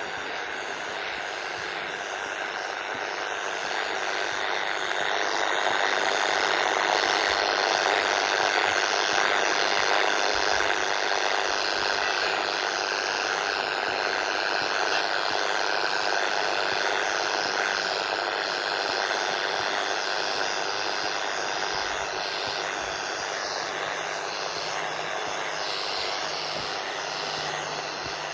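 Radio receiver hiss heard through the set's speaker: a steady wash of static that swells for a few seconds and then eases. It is the high noise floor on the 80 and 40 metre bands, which the owner is pretty sure comes from the neighbouring house's wireless CCTV and Ring doorbell.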